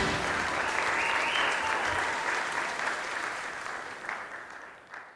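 Audience applauding just after the song's final note, the clapping fading steadily away toward the end.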